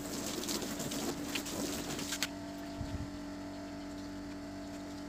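A stream of water from a hose splashing and pattering over a plastic Suzuki Swift bumper, rinsing it, stopping about two seconds in. A steady low motor hum runs underneath.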